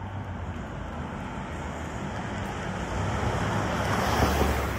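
A car driving past close by, its tyre and engine noise swelling to a peak near the end and then starting to fade, over a steady low traffic rumble.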